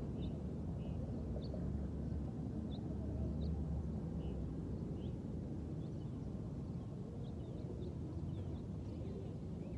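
Outdoor ambience: a steady low rumble, with short high bird chirps scattered through it every second or so.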